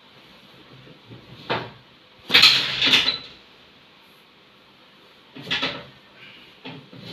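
Short clattering knocks: a light click, then a loud double clatter about two and a half seconds in, and another clatter about five and a half seconds in.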